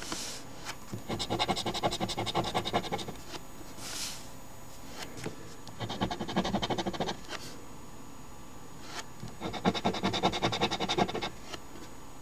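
The scratch-off coating is scraped from a paper instant lottery ticket in three bouts of rapid back-and-forth strokes, each lasting about one and a half to two seconds.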